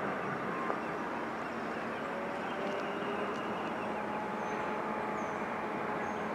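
Steady distant rumble of an Amtrak Cascades train moving away, with a few faint bird chirps in the second half.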